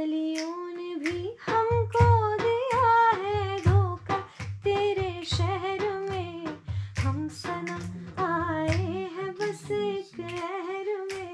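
A woman singing a slow melody with no instruments, holding long notes that waver in pitch. Beneath her voice is a soft, low thudding about twice a second.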